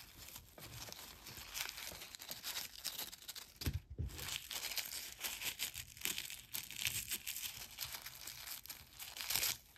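Crinkly wrapping being rustled and crumpled by hand while jewelry pieces are unwrapped, in irregular crackles, with one soft thump a little before four seconds in.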